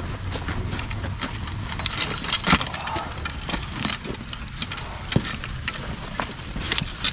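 Irregular clicks and knocks of harness hardware as hames are fitted onto a draft horse's collar and handled, over a low steady rumble.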